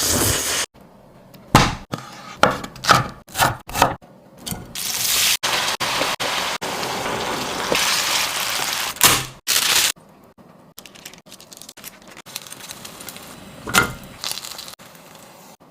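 Kitchen cooking sounds: a quick run of sharp knocks and cracks, then a steady hiss lasting about five seconds, then faint clatter with one more knock near the end.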